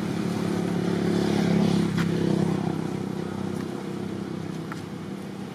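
A passing motor vehicle's engine: a steady drone that swells to its loudest about two seconds in and then fades away. A single sharp click about two seconds in.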